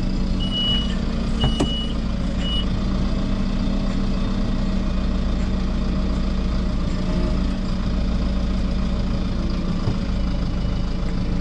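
Fendt 312 tractor engine running steadily, heard from inside the closed cab. Three short high beeps sound in the first three seconds.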